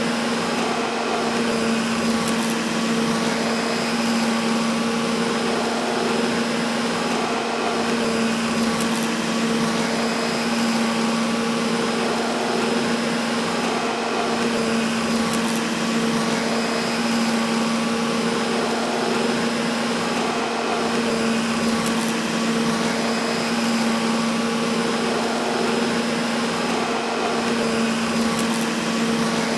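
Vacuum cleaner running steadily: an unbroken rush of air under a constant motor hum.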